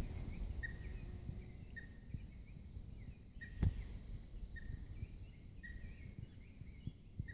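Otters chirping: short, high chirps repeated about once a second, with fainter chirps among them. A single sharp knock about three and a half seconds in.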